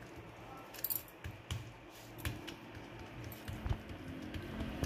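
Faint, irregular soft pats and rustles of fingers patting ragi roti dough flat on an oiled sheet, with a few small clicks.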